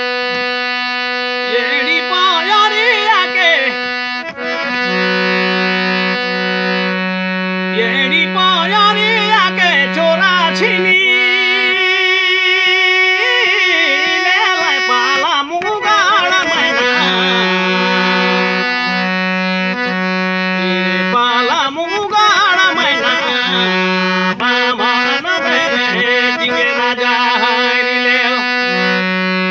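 Folk tune in the adhratiya (midnight) raag, played on a reed instrument. Long held drone notes sound beneath a wavering, ornamented melody line.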